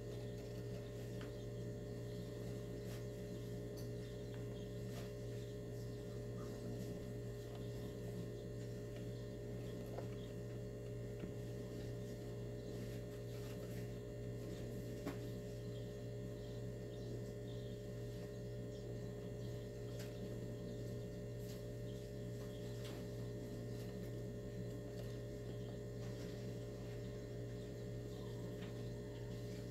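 Steady low electrical hum with a few faint clicks scattered through it.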